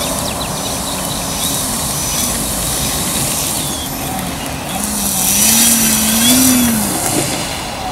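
Radio-controlled model airplane's motor and propeller whining, the pitch wavering up and down as the throttle is worked, getting louder for a couple of seconds past the middle.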